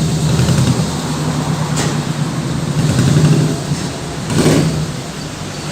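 RC miniature dump truck running with a steady engine-like hum, with a click about two seconds in and a short rush of noise about four and a half seconds in.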